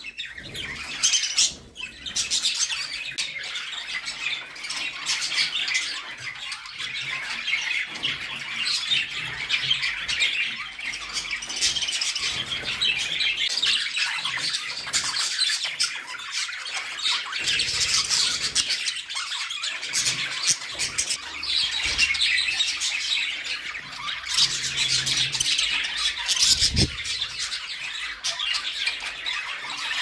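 A flock of budgerigars chattering and warbling without pause, a dense tangle of high chirps and calls. Near the end comes a single short low thump.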